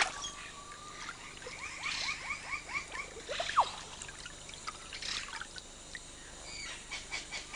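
Water splashing and trickling as a large tambaqui thrashes in a net at the side of a dugout canoe, with forest birds calling over it: a held whistle, then a quick run of falling notes about two seconds in.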